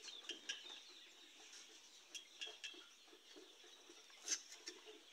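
Faint chirping of birds, with a few light clicks; the sharpest click comes about four seconds in.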